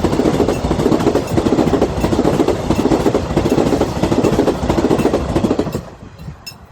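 Train passing over a level crossing: a loud, steady rumble with wheel clatter that falls away about six seconds in as it clears. After that, the crossing's warning bell can be heard dinging repeatedly.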